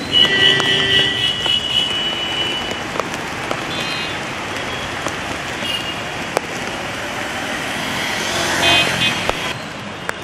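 Street traffic on a flooded road: motorbikes and other vehicles running through water, with a vehicle horn sounding for about the first two seconds and again briefly near the end.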